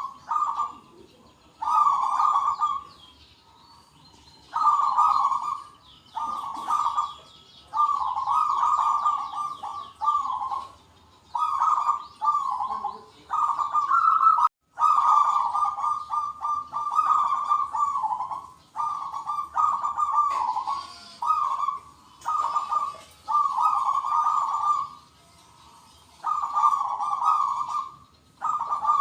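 Zebra doves (perkutut) cooing, several calling back and forth in overlapping rolling phrases about a second long, with fainter high chirps of small birds above them.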